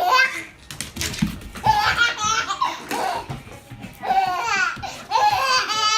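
A baby laughing in several separate bursts of giggles.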